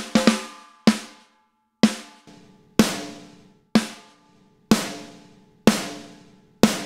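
Soloed snare drum track: the original recorded snare blended with a replacement snare sample, struck about once a second with a couple of softer notes in between. Each hit is sharp and rings out before the next.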